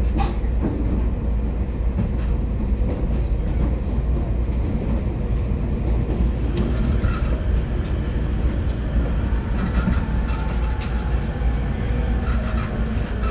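Interior running sound of an E231-series commuter train heard at floor level by the gangway: a steady low rumble of wheels on rail, with a few sharp knocks. In the second half a whine from the traction motors slides slowly down in pitch as the train slows.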